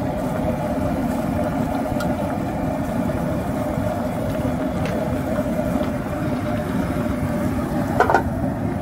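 Soup boiling hard in a steel wok, a steady low bubbling rush. About eight seconds in, the metal lid is set on the wok with a short clank.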